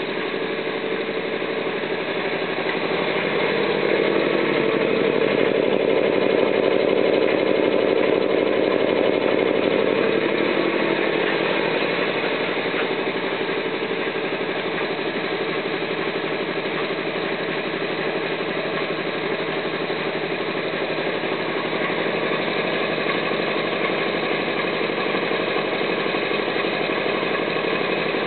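Homemade belt-driven air compressor running steadily, pumping its tank up from about 98.5 psi toward a cut-out near 108 psi. It grows somewhat louder for several seconds about four seconds in, then settles back.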